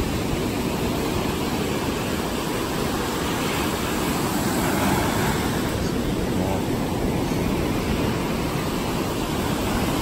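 Ocean surf breaking and washing up the sand, a continuous steady rush with a deep rumble.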